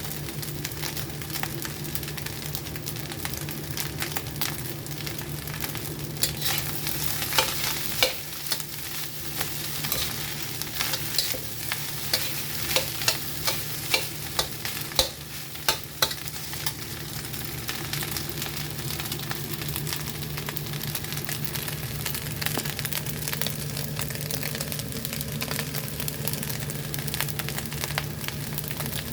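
Fried rice sizzling in a pan as it is stir-fried, with a run of sharp spatula knocks and scrapes against the pan from about six to sixteen seconds in. A steady low hum runs underneath.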